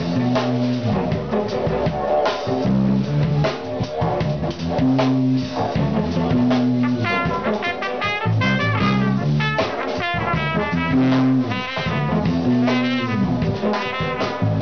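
Live jazz-funk band jam with a repeating low bass riff and drum kit, a didgeridoo and a tenor saxophone in the mix. From about seven seconds in, a trumpet takes over on top with fast, wavering runs.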